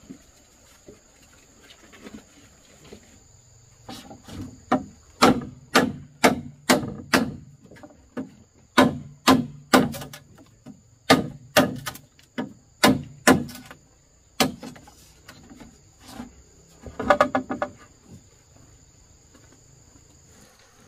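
Sharp knocks, about one or two a second, starting a few seconds in and stopping about two-thirds of the way through, then a quick flurry of them a little later. Insects buzz steadily at a high pitch underneath.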